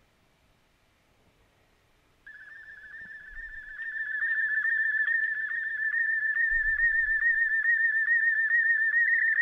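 Near silence, then about two seconds in a received slow-scan television (SSTV) signal starts: a warbling high tone with quick regular dips that grows louder over the next couple of seconds and then holds steady. It is the VIS header and the start of a Scottie S1 image transmission being decoded.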